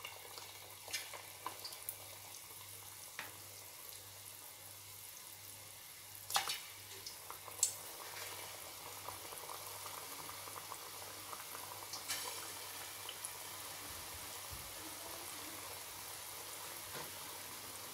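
Besan (gram flour) pakora batter frying in hot oil in a kadhai: a faint, steady sizzle that grows a little louder about halfway through as more batter goes in. A few sharp clicks are heard.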